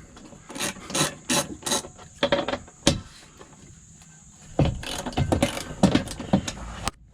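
Hand tools on steel bolts: irregular metallic clicks and knocks of a socket and ratchet working 16mm bolts, in two bursts with a short lull in the middle.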